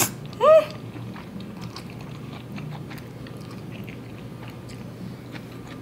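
A loud slurp of Buldak spicy instant noodles right at the start, then a short hum of the voice half a second in that goes up and back down. After that comes quiet chewing of the noodles, with faint small mouth clicks.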